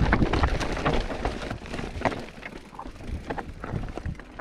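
Mountain bike rolling down a rocky trail: irregular clacks and rattles from the bike over the rocks, with wind rumbling on the microphone, busiest in the first two seconds and quieter after.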